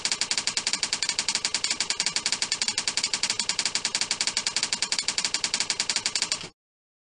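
Typewriter-style typing sound effect: rapid, evenly spaced clicks, over a dozen a second, that stop abruptly near the end into dead silence.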